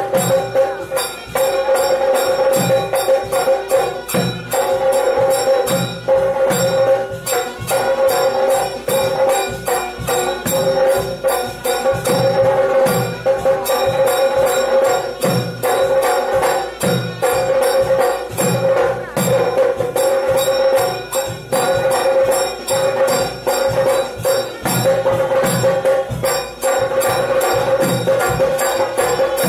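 Traditional South Indian temple music for a puja: drums beating a steady rhythm under a long held high tone, with metallic bells ringing.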